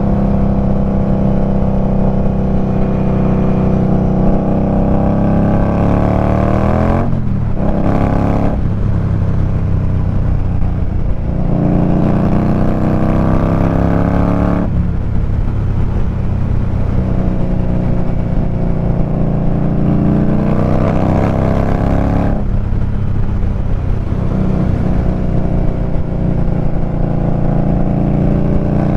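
Indian Scout Rogue's V-twin through GP Shorty short exhaust pipes, heard from the saddle while riding under acceleration. The engine note rises steadily, then drops briefly about three times, at each gear change, before climbing again.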